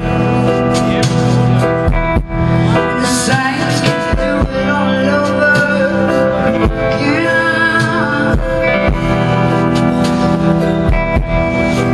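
Live band music played on stage, loud and steady, with sustained chords.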